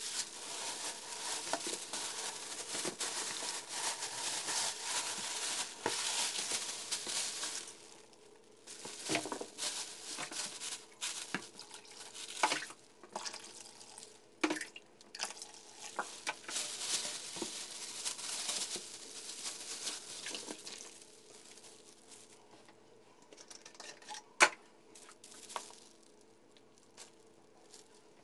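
Thin plastic bags crinkling and rustling as they are handled and twisted, full of sharp crackles. The rustling stops about two-thirds of the way through, leaving only a few scattered crinkles and one sharp snap.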